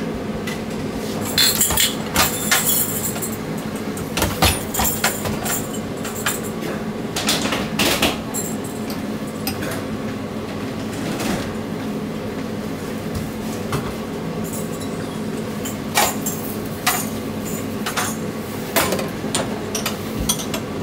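Scattered clinks and knocks of dishes, glassware and utensils at a food counter, over a steady hum.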